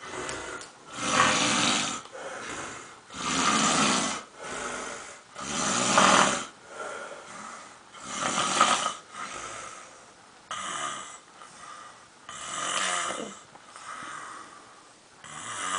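A sleeper snoring loudly: about six long snores, roughly two and a half seconds apart, with quieter breathing sounds between them.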